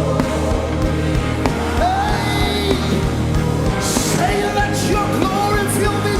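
Live gospel worship band playing with drums and sustained chords while singers carry a melody between lyric lines.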